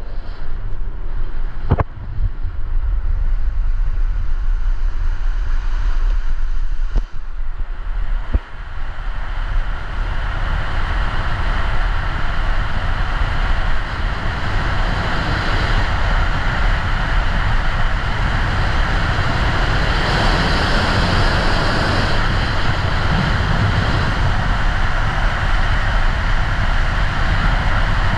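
Lugeboard wheels rumbling on rough asphalt under a loud rush of wind on the microphone, as the board runs fast downhill. The rush grows louder after about ten seconds as speed builds, and a few short knocks come in the first eight seconds.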